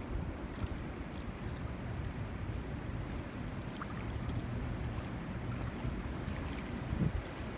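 Wind-driven ripples lapping and splashing at a pond's shoreline among sticks and a fallen log, a steady wash of water, with a low rumble of wind on the microphone.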